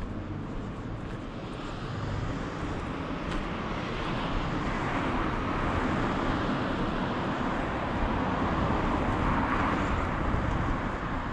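Engine and road noise of a passing vehicle, swelling slowly over several seconds and easing off near the end, over background street traffic.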